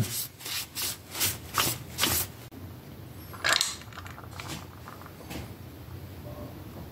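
A cloth rag wiping the metal clutch housing of a Yamaha PW50 engine in quick, repeated strokes for about two seconds. About three and a half seconds in there is a single sharp clack as parts are handled.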